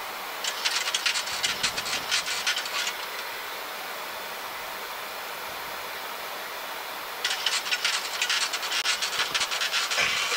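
Steady airflow hiss in a Boeing 737 cockpit on approach, with two bursts of rapid mechanical clicking: one starting about half a second in and lasting over two seconds, the other from about seven seconds in, running on for over three seconds.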